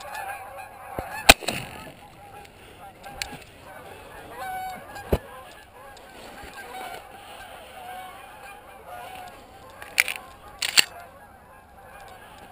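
A flock of Canada geese honking steadily overhead. A few sharp bangs cut through the calls: the loudest about a second in, and a close pair near the end.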